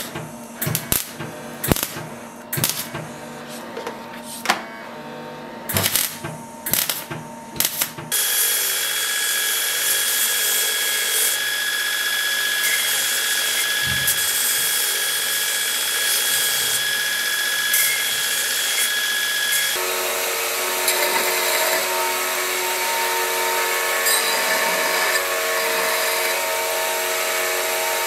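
Uneven hammer blows on a small piece of sheet metal on an anvil for about the first eight seconds, then a belt grinder running steadily as a metal scabbard fitting is ground against the belt, throwing sparks. About twenty seconds in the tone changes as the work moves to a narrow belt running over a small contact wheel.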